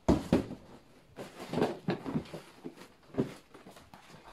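Plastic packaging wrap rustling and crinkling in several short, irregular bursts as a tall leather boot is lifted out of its box.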